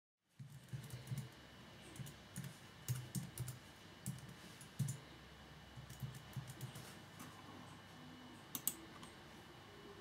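Typing on a computer keyboard: irregular keystrokes for about seven seconds, then a quick pair of sharper clicks near the end.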